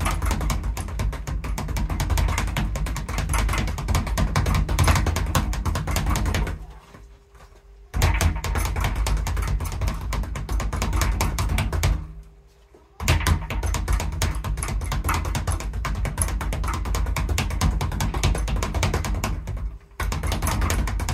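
Speed bag being punched in a fast, continuous drumming rattle against a wooden rebound platform. The drumming stops twice near the middle, for about a second each time, and very briefly once more near the end.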